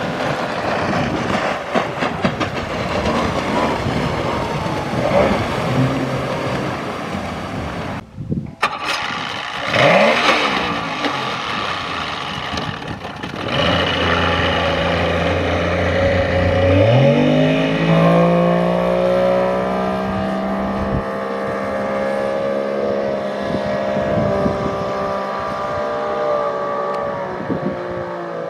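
Duck boat outboard motor running and revving, with a short break about eight seconds in. A little past halfway the engine's pitch climbs quickly, then holds at a steady high speed.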